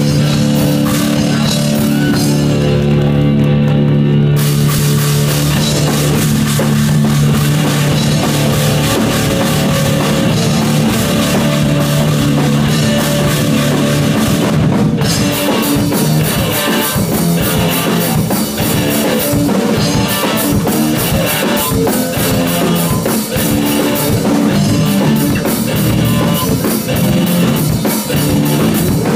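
Live rock band of electric guitar, electric bass and drum kit playing an instrumental intro. Held guitar and bass chords open it, and the drums and cymbals come in with the full band at about four seconds. After a brief break near fifteen seconds it turns into a choppier, hard-hitting rhythmic section.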